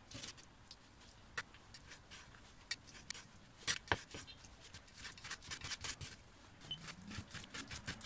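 Kitchen knife chopping raw meat on a wooden cutting board: a few scattered knocks at first, then from about five seconds in a quick run of chopping strokes as the meat is minced.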